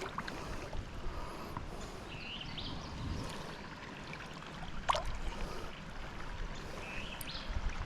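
Steady rush of flowing water, with a few light clicks and one short sharp sound about five seconds in.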